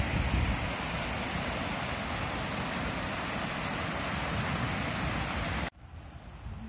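Rushing water of a fast, shallow mountain stream tumbling over boulders, a dense steady hiss and rumble that cuts off abruptly near the end to a much quieter background.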